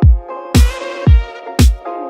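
Electronic dance music with a steady kick drum about twice a second, synth chords and claps.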